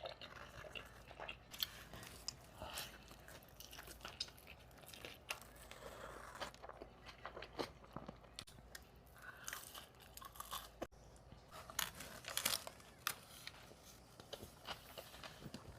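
A person chewing and biting food close to the microphone, with soft scattered crunches and mouth clicks.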